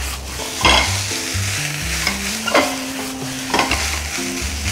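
Fried rice with shrimp sizzling in a hot nonstick frying pan as a spatula stirs and turns it, with a few sharper scrapes of the spatula across the pan.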